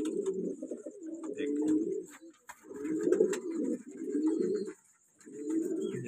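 Gubbara (balloon) pigeons cooing: five low coo phrases, each about a second long, with short pauses between them.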